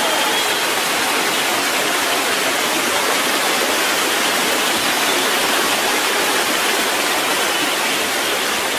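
Large football stadium crowd making a loud, steady wash of noise, with no single voice or chant standing out.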